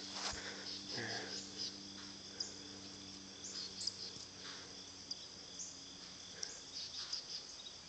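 Insects chirping steadily in the grass, a constant high trill, with scattered faint clicks and rustles as the phone and the rabbit's fur are handled.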